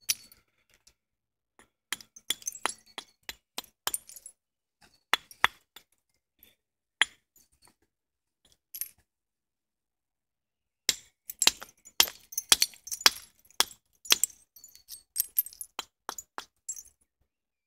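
Flint knapping: an antler hammer striking and working the edge of a flint hand axe, giving sharp, glassy clicks and taps. They come in two spells, the second denser, with a pause of about two seconds between.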